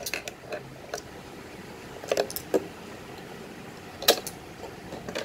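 AA batteries being pulled out of the battery compartment of a plastic electronic coin bank and the box handled: scattered clicks and knocks, about half a dozen, the sharpest about four seconds in. The batteries are taken out to reset the bank's electronic lock.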